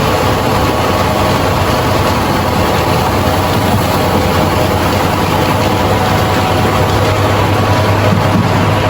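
Rice milling machine running steadily: a loud, even mechanical drone with a constant low hum.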